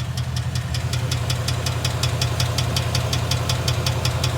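2011 Ford Mustang GT's 5.0 Coyote V8 running with a steady, rapid, even metallic knock over the low engine hum: rod knock from a bad connecting-rod bearing.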